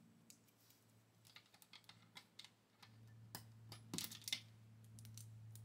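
Faint scattered clicks and rustles of long fingernails handling a synthetic lace-front wig at the hairline, with a small cluster of clicks about four seconds in. A low steady hum starts about three seconds in.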